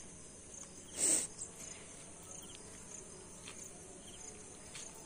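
Steady high-pitched insect drone with faint repeated chirps. A short, loud rustling burst comes about a second in.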